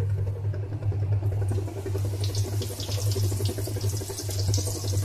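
Slices of white bread going into hot oil in an iron karahi and deep-frying, the oil sizzling and crackling, thickening from about a second and a half in, over a steady low hum.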